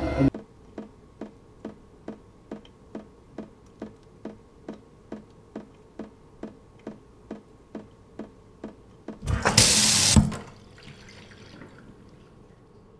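Wall clock ticking steadily, about two ticks a second. About nine seconds in, a kitchen tap gushes into a stainless-steel sink for about a second and is shut off sharply.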